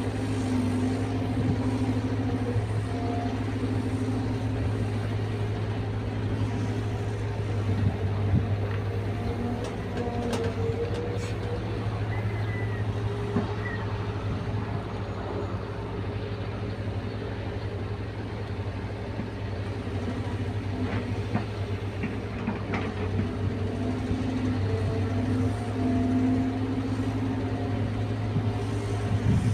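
Caterpillar 320 excavator's diesel engine running steadily under work, with a whine that comes and goes above the engine hum and a few brief knocks.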